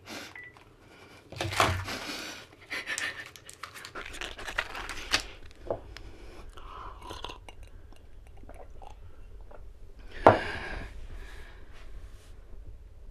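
A woman's heavy, distressed breathing mixed with rustling of clothing and sofa fabric as she shifts about, in bursts over the first five seconds. A sharp, loud sound comes about ten seconds in.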